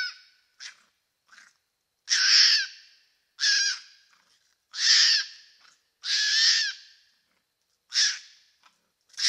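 An animal giving a series of harsh calls, each under a second long and about a second apart, the four longest and loudest in the middle, with shorter, fainter ones before and after.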